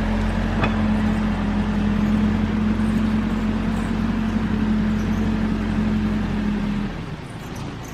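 Caterpillar backhoe's diesel engine running steadily under load, with a steady hum over it. About seven seconds in the hum stops and the engine sound drops.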